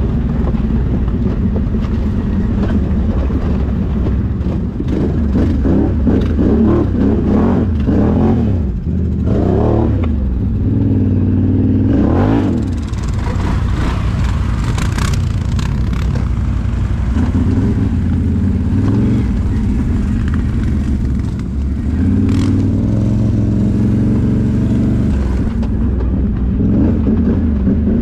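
Can-Am Outlander XMR 1000R ATV's Rotax V-twin engine running under the rider's throttle, revs rising and falling several times in the first half, then holding steadier, with a few brief clattering knocks.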